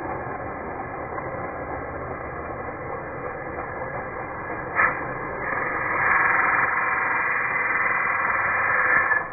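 Angle grinder running, then grinding a flat steel bar in a vise, louder from about six seconds in, with a short knock just before that. It sounds muffled, with the top end cut off.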